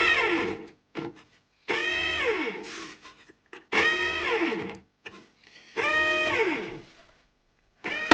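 Tefal bread maker's motor buzzing in short pulses about every two seconds, each pulse falling in pitch as it dies away, while the kneading paddle does not turn: the motor is running free because the toothed drive belt has slipped off.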